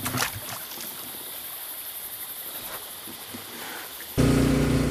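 Faint steady trickling of water with a brief handling knock at the start, then, about four seconds in, a sudden switch to the loud steady hum of the electrofishing boat's engine running.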